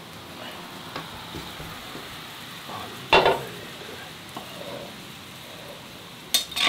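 Hot food sizzling in a cast-iron pan just off the grill, with light knife clicks on a wooden board. About three seconds in there is one loud knock, and near the end a short clatter.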